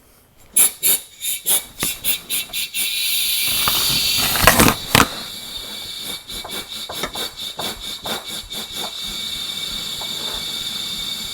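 Compressed-air blowgun blowing into the Kubota BX23S front axle's open plug hole to push the old gear oil out faster: a series of short puffs, then a steady high hiss with a whistling tone, loudest about four to five seconds in.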